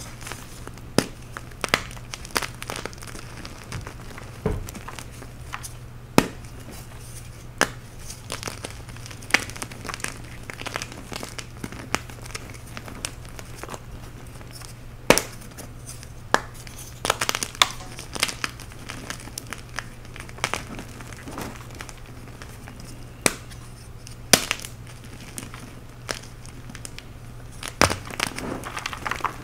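Hands crushing and crumbling blocks of dyed chalk: irregular crisp snaps and crackles of chunks breaking, with the soft hiss of loose powder, over a faint steady low hum.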